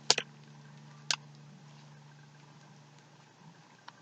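A few short, sharp sticky clicks from homemade slime being handled: two close together at the start and one about a second in, over a faint steady hum.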